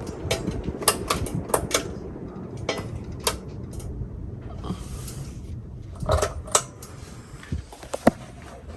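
Ceiling fan running with a steady low whir, under irregular sharp clicks and clatter, the loudest about a second in and again past the middle.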